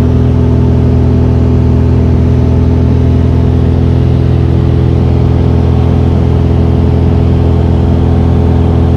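A Mooney M20F's 200 hp four-cylinder fuel-injected Lycoming IO-360 engine and propeller running steadily in flight, heard from inside the cabin as an even, unchanging drone.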